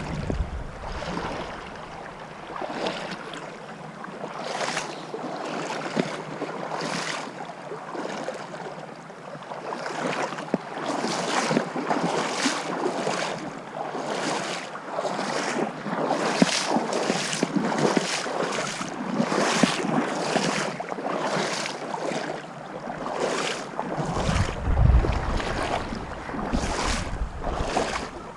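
Legs wading through shallow river water: a regular series of swishing splashes, roughly one to two a second, with a low rumble of wind on the microphone near the end.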